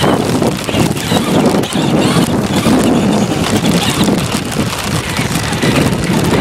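Traxxas Slash 2WD RC truck driving fast over grass, heard from a camera mounted on the truck: wind buffets the microphone while the tyres and chassis rattle and jolt over the bumpy turf.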